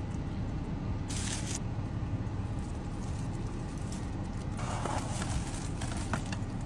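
Steady low rumble of a car cabin with the engine running. Over it, plastic gloves and a plastic-wrapped aluminium foil tray crinkle and rustle, briefly about a second in and again with a few sharp crackles near the end.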